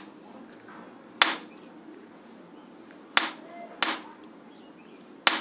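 Sharp snapping cracks of sparks as the bare output wires of a homemade 555-timer/IRFZ44N boost converter, stepped up to about 70 V, are touched together in a deliberate short circuit. There are four snaps, two of them close together about three seconds in, one near the end.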